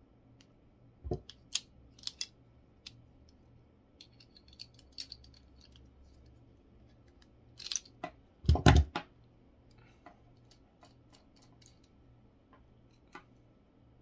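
Scattered clicks, taps and knocks of hand tools and a compression F connector being handled while an RG6 quad shield coax end is prepared for termination. A short scrape comes about four seconds in, and the loudest knocks come about eight and a half seconds in.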